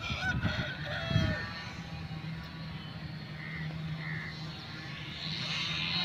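A few short honking animal calls in the first second or so, then two faint brief calls, over a steady low hum.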